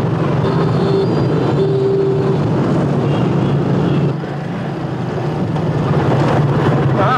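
Busy street traffic with motorbike and car engines running, with two short steady tones about a second in. The level dips briefly about four seconds in, then builds again.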